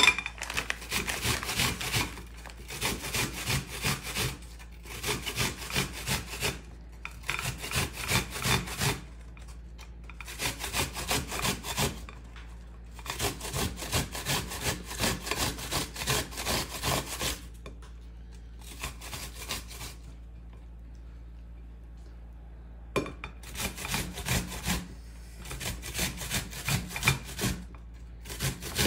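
A peeled onion being grated on a stainless steel box grater: quick rasping strokes in runs of a couple of seconds, with short pauses between and one longer pause about two-thirds of the way through.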